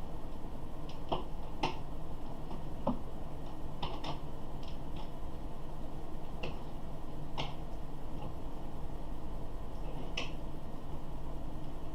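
Small irregular clicks and ticks from a torque screwdriver and the Threadripper TR4 socket's metal retention bracket as a screw is worked in to get it started, about a dozen over the stretch, over a low steady hum.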